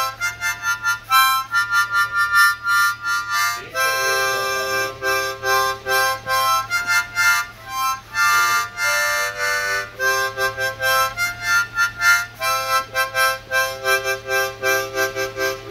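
Juarez harmonica, cupped in both hands, played as a loose run of chords and single notes. Each lasts from a fraction of a second to about a second, with short breaks between.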